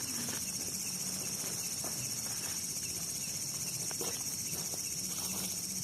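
Chorus of night insects in the forest, a steady, dense high-pitched shrilling that goes on without a break; the speaker calls it very noisy.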